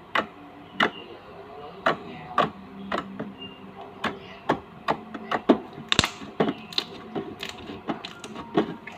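A series of irregular sharp clicks and taps, one to three a second, the loudest about six seconds in.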